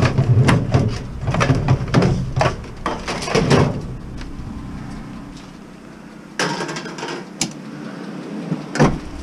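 Knocks and clatter of scrap being handled: a discarded speaker and its wire pulled about and set down, with a run of quick knocks over the first few seconds, then a short scraping rasp and two sharp knocks near the end.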